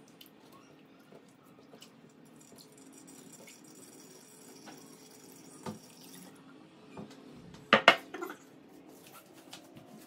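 Hands pressing a wet, milk-soaked dry-fruit mash in a cotton cloth, with faint wet handling sounds, liquid trickling into a vessel and scattered small clicks. About eight seconds in there are two loud knocks in quick succession.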